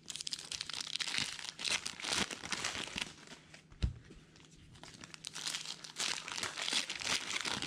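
Foil wrappers of baseball card packs crinkling and tearing as the packs are ripped open and handled, in two busy stretches with a quieter pause between. A single sharp knock sounds a little under four seconds in.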